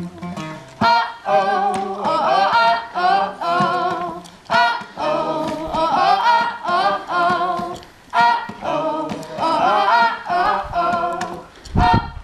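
A woman singing a melody with almost no accompaniment, her voice wavering up and down. Low instruments come back in near the end.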